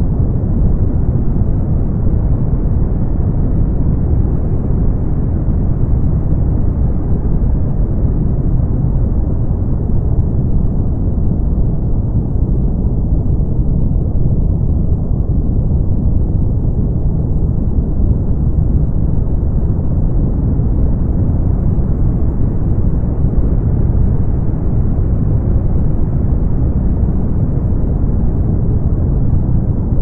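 Steady brown noise: an even, deep rush of noise, heaviest in the bass and thinning out toward the highs, with no change in level.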